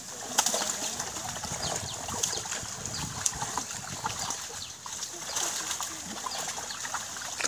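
Many fish crowded in a drawn-in net, flapping and splashing at the pond's surface in a continuous patter of small splashes.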